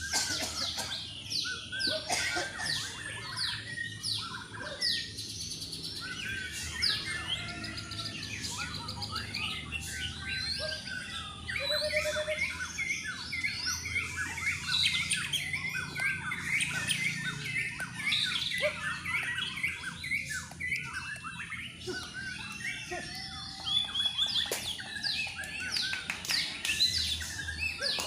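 Many caged white-rumped shamas singing at once in a dense, unbroken mix of overlapping whistles, chirps and quick trills.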